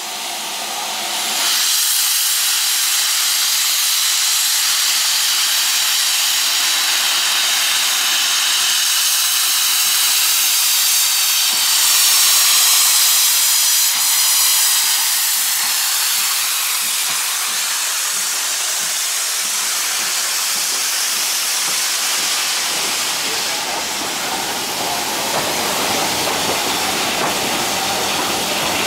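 Steam locomotive letting off steam: a loud, steady hiss that starts about a second and a half in, with a lower rumble joining near the end.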